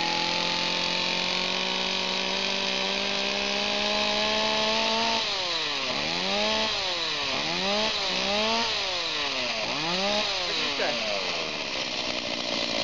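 Stihl two-stroke chainsaw engine held at full throttle, its pitch creeping slowly upward, then blipped several times, the revs dropping and climbing again before falling away near the end. The owner credits its free-revving to the MPG Boost fuel additive.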